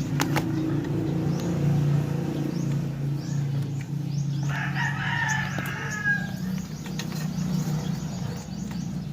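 A rooster crowing once, for about two seconds, near the middle, over a steady low hum and a few light clicks.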